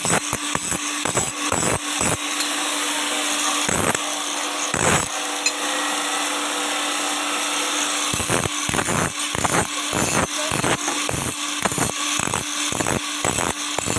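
Steady run of hammer blows on an axe head, about two a second, over a steady hum and hiss; the blows thin out for a few seconds in the middle, then resume.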